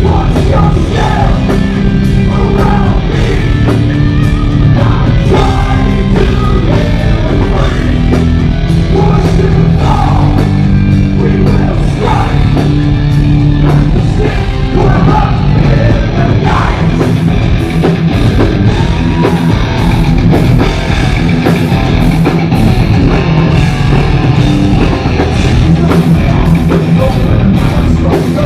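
Live heavy metal band playing loud, with distorted electric guitars, bass and drums under a male voice singing.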